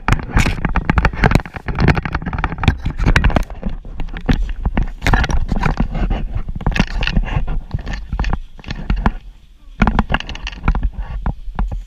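Skis scraping and hissing over snow at speed, with wind rumbling on the camera's microphone. The noise is rough and irregular and eases off about nine seconds in.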